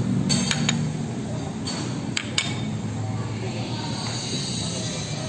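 Ceramic plates clinking several times in the first half, over a steady low hum of room noise.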